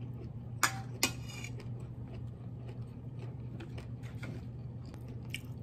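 A metal fork clinks twice against a ceramic plate, about half a second apart near the start, the second clink ringing briefly; faint small ticks and a steady low hum follow.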